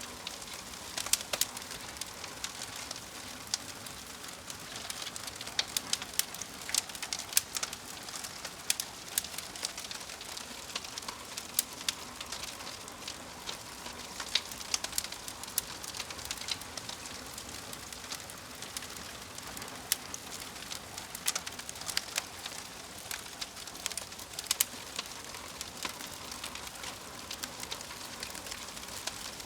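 Wood fire crackling: a steady soft hiss with frequent, irregular sharp pops and snaps.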